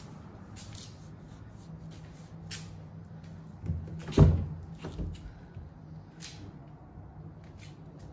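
A Toyota Corolla's car door being opened, with a loud latch thunk about four seconds in and smaller knocks just before and after it.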